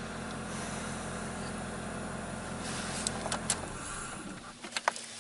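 2001 Saturn coupe's 1.9-litre four-cylinder engine idling steadily, running again after its groundhog-chewed ignition coil wiring was repaired. It stops about three and a half seconds in, and a few sharp clicks follow.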